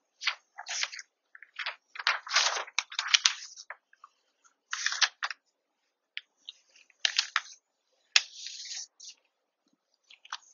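Sheets of paper rustling and sliding across a sketchpad as a printed reference sheet and a blank covering sheet are handled and repositioned. The sound comes in short bursts with a few sharp clicks and taps in between.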